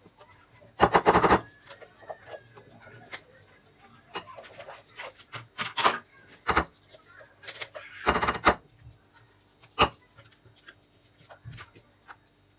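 A spatula knocking and scraping against the rims of a glass bowl and a ceramic mixing bowl as whipped egg whites are scooped and folded into a soft cream mixture. There are rapid clattering rattles about a second in and again near eight seconds, with single knocks and soft scrapes between them.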